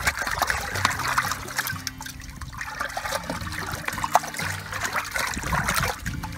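A hand swishing and splashing in the open, ice-free water of a solar-heated livestock water tank, with irregular small splashes and trickling.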